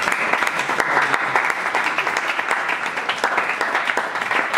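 Audience applauding: a steady, dense clatter of many people clapping.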